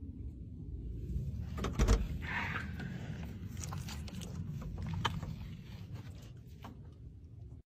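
A door clicks open with a sharp knock about two seconds in, over a steady low rumble. A few lighter clicks follow.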